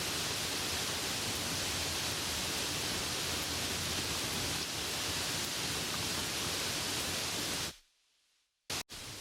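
Steady hiss of soft rain falling, which cuts out abruptly nearly 8 seconds in, leaving a moment of near silence broken by a brief blip, then resumes a little quieter.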